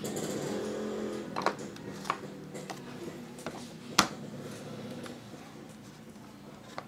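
Plastic toy parts of a Play-Doh cake set being handled, giving a few sharp short clicks and taps, the loudest about four seconds in, over a faint low hum that dies away in the first half.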